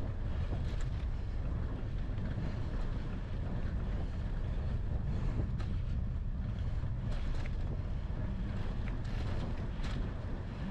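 Wind buffeting the microphone of a camera on a moving bicycle, giving a steady low rumble, with a few faint clicks in the second half.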